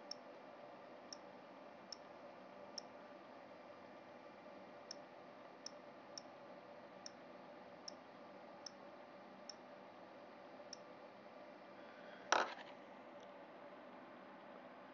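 Faint, sharp key clicks, one per letter, as a web address is typed slowly on an iPod Touch's on-screen keyboard, about one tick a second. One louder knock about twelve seconds in.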